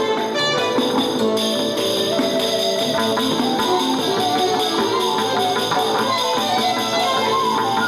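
Instrumental music with many quick plucked-string notes over a dense, steady ensemble texture.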